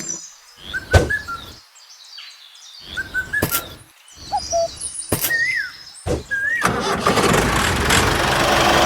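Birds chirping in short repeated whistled calls, with a few sharp clicks, then a small motor starts about seven seconds in and runs steadily with a hum.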